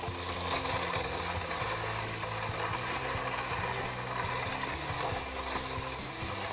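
Brick-built toy tank dragged on a string over a dirt path covered in pine needles, its wheels rolling and scraping in a steady rough rumble.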